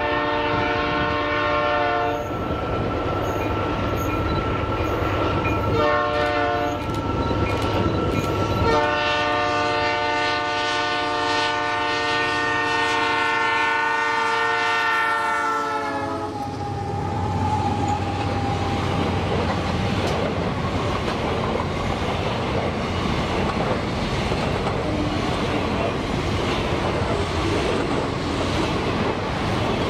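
Freight train's diesel locomotive sounding its chord air horn: a blast, a short toot, then a long blast whose pitch drops as the locomotive passes. The rumble and clickety-clack of the wagons rolling over the rails follow.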